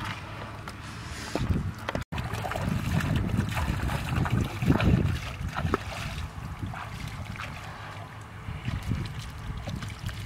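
Hands splashing and sloshing through shallow muddy water while catching fish by hand, with uneven splashes and water stirring.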